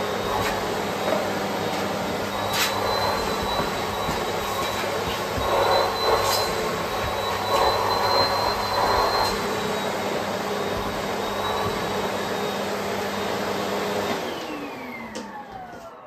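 Bosch canister vacuum cleaner running steadily with a whine, its hose nozzle working over a fabric slipper. The sucking swells at a few moments, and there are a few light knocks. About fourteen seconds in, the motor winds down, its whine falling in pitch as it fades.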